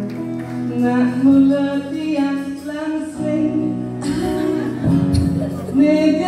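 Live music: a singer holding long notes over steady instrumental accompaniment.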